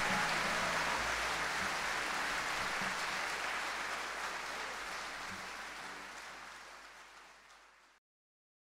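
Concert audience applauding. The clapping fades out over the last few seconds and cuts to silence near the end.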